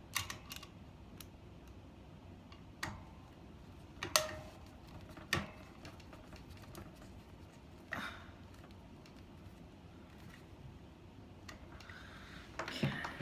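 Scattered sharp clicks and light knocks, about half a dozen spread out at uneven intervals, from small parts being handled while the back cover is fitted onto an electric fan.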